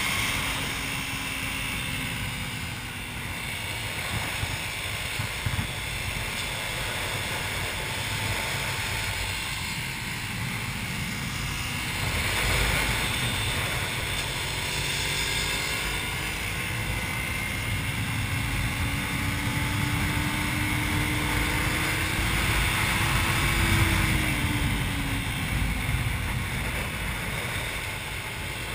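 Motorcycle engine running at speed, heard through heavy wind rush on an onboard camera microphone. The engine note climbs slowly in the last third and drops again near the end.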